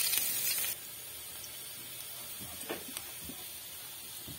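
Chopped garlic and onion sizzling in hot oil in a frying pan. The loud sizzle drops off abruptly under a second in, leaving a faint hiss with a couple of light clicks.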